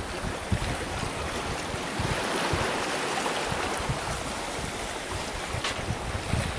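Water rushing and splashing along a sailboat's hull under sail, with wind buffeting the microphone in uneven low rumbles.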